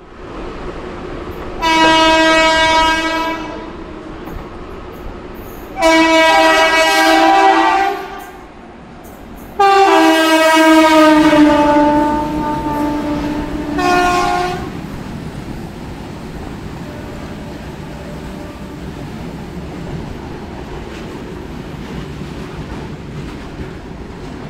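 Air horn of a pair of WAG-5 electric freight locomotives sounds three long blasts and a short fourth one; the third blast drops in pitch partway as the locomotives come alongside. After that comes the steady rumble and clatter of the goods wagons rolling past, heard from the open door of a moving EMU.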